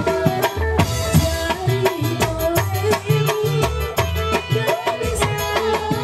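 Live dangdut band playing: an electronic keyboard holding the melody over a quick, steady rhythm of kendang hand drums.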